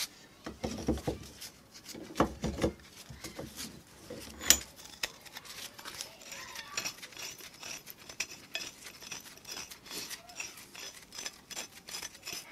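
Steel parts of an old, rust-stiffened pipe wrench clicking and rattling in hand as it is turned and its toothed hook jaw is worked out of the body. There is one sharp metal clink about four and a half seconds in, then a run of small rapid clicks.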